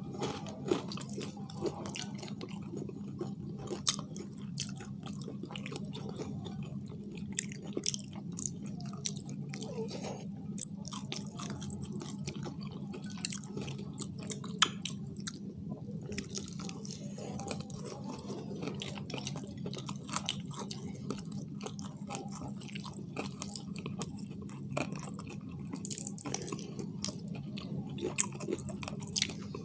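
People chewing and biting into fried chicken, with scattered wet mouth clicks and crunches, a few sharper than the rest, over a steady low hum.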